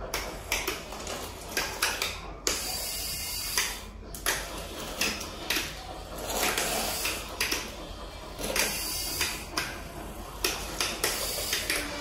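Homemade robot vacuum cleaner, a canister vacuum mounted on a wheeled steel frame, rattling as it moves over a concrete floor: irregular knocks and clicks with short bursts of hiss.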